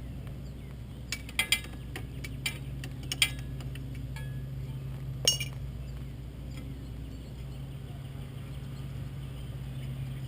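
Two 12 mm wrenches clinking on a quad's clutch-cable adjuster nuts. There are a handful of sharp metal clinks in the first half, then only a steady low hum.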